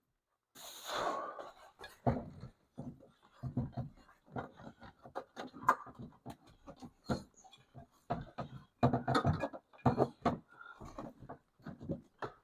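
Irregular plastic clicks, knocks and scraping as a tool works at a tight retaining clip inside a car door.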